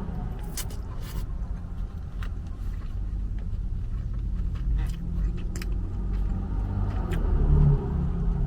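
Steady low rumble of vehicles, swelling louder near the end, with scattered small clicks and scrapes from eating with a spoon.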